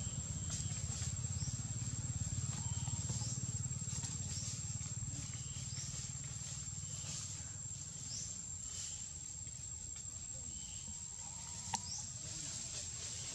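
Outdoor ambience: a steady high whine with short, high falling chirps every second or two, over a low rumble that eases off in the second half. One sharp click near the end.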